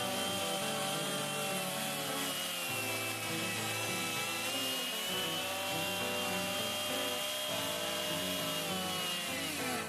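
Gas chainsaw running at high revs while cutting into an overhead branch, its engine pitch wavering slightly under load. Near the end the revs fall away as the throttle is released.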